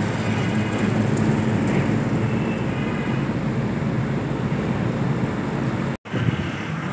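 Steady engine hum and road noise from a moving vehicle in city traffic. The sound drops out abruptly for a moment near the end, then resumes.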